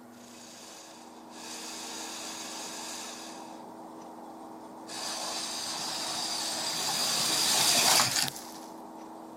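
HO-scale slot car's small electric motor whirring down the drag strip, growing louder as it approaches and cutting off abruptly about eight seconds in as the car shoots off the end of the track into the sand trap. A shorter, quieter burst of similar whirring comes a second or so in.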